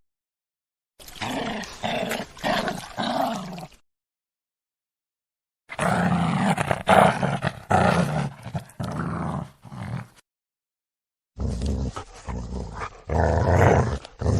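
Angry dog growling and barking, in three separate stretches broken twice by a second or two of dead silence.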